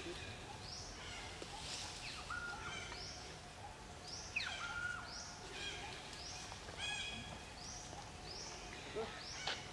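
Outdoor ambience of birds calling: repeated short high chirps and a few longer whistled calls, one sliding down in pitch about four seconds in, over a steady background hiss, with a brief click near the end.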